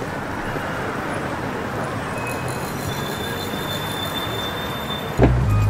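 City street traffic noise: a steady rumble and hiss of passing vehicles. A loud low steady tone starts suddenly near the end.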